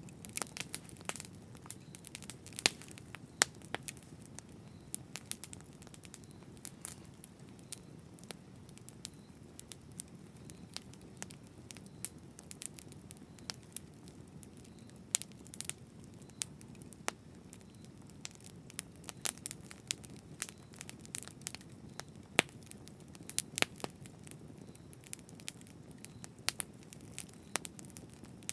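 Campfire burning: a steady low rush of flames with sharp, irregular crackles and pops of wood.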